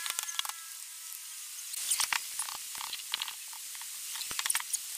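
Light clattering and knocking of wooden form strips being worked loose and pulled off freshly cured concrete bases, in a few scattered bursts of small clicks.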